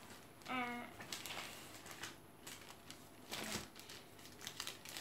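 Gift wrapping paper rustling faintly in short bursts as fingers pick at the tape to open a wrapped present. A brief pitched voice-like sound comes about half a second in.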